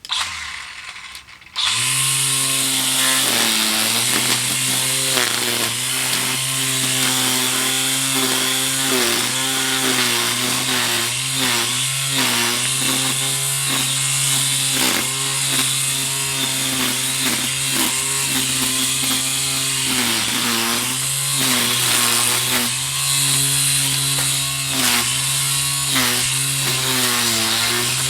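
Small two-stroke engine of a handheld power tool, such as a brush cutter or chainsaw, running hard. Its pitch dips briefly again and again as it bites into the work under load. It comes on right at the start and settles into a steady run about a second and a half in.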